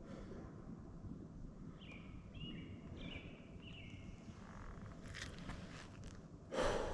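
Quiet outdoor background with a few short, downward-gliding bird chirps in the middle. Near the end comes one loud, heavy, breathy exhale lasting about half a second.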